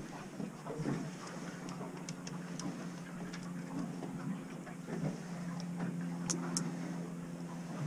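Light clicks and small slaps of choppy water against a small fishing boat's hull, over a steady low hum. Two sharper ticks come about six and a half seconds in.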